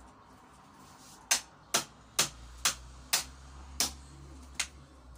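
A bottle being struck hard again and again with a handheld tool: seven sharp knocks, about two a second, the last ones weaker. The bottle, sold as indestructible, does not break.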